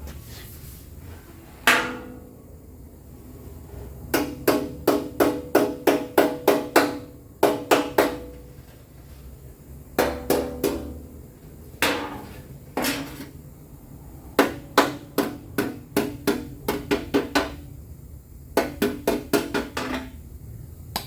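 Hammer striking metal in quick runs of blows, about three a second, each blow ringing briefly, with short pauses between the runs.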